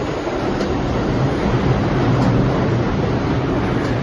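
R142 subway train cars rolling past along the platform as the train pulls into the station: a steady, loud rumble of wheels on rail.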